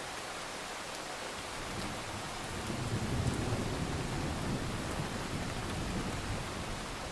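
Steady rain hiss with a long, low roll of thunder that swells about a second and a half in, peaks a little later and slowly fades away.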